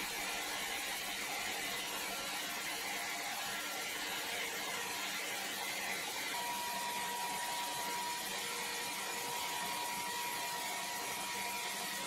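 Large band sawmill blade cutting through a big square timber block: a steady, even hissing whine of saw in wood. A thin steady tone joins about halfway through.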